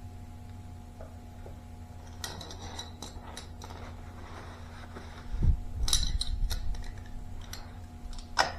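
Metal tools clinking and clicking several times, with a dull low thump a little past the middle, over a faint steady hum.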